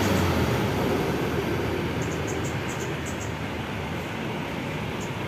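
Intercity bus's diesel engine running over steady traffic noise, its low rumble fading as the bus moves off.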